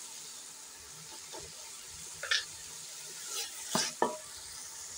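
A wooden spoon stirs chopped turnips frying in an aluminium pot, over a steady low sizzle. A few sharp scrapes and knocks of the spoon against the pot come about halfway through and near the end.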